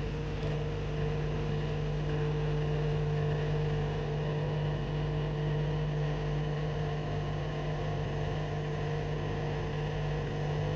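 Lavazza capsule espresso machine's pump humming steadily while it brews.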